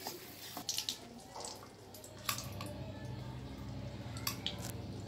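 Scattered light scrapes and clinks of a flat metal spatula against an iron kadai and a steel plate while fried gond is lifted out, over a low steady rumble that starts about two seconds in.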